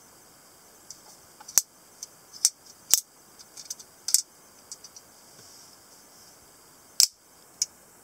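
Sharp metallic clicks from a lever-lock stiletto switchblade being handled and its lever worked, several in the first half. Near the end comes one loud snap as the spring-driven blade flies open and locks, then a smaller click.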